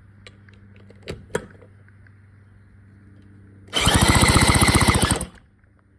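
Power drill on the flywheel nut spinning a 1957 Mercury Mark 6 outboard over for about a second and a half, a loud rapid even rattle, after two light clicks near the start. The engine is being cranked for a spark test of the swapped-in OMC coil through a grounded test plug.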